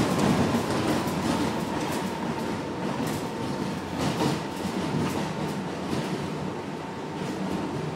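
NYC 1 train R62A subway car running on elevated track, heard from inside the car: steady rumble and rattle of wheels on rail with occasional clicks over rail joints and a faint steady high whine, gradually getting quieter.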